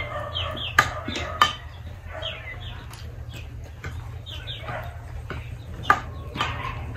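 Chickens clucking in many short, falling calls, with a few sharp clicks of spoons against plates and a glass serving dish about a second in and again near the end.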